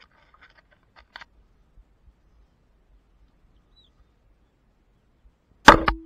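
A few faint clicks, then a single sudden loud bang or knock near the end, followed at once by a smaller second hit and a short ringing tone that fades over about a second.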